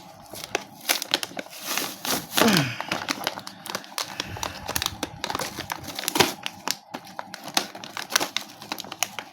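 Beyblade toy packaging being torn open and crinkled by hand: a run of irregular crackles, rustles and small clicks, with a short falling-pitch sound about two and a half seconds in.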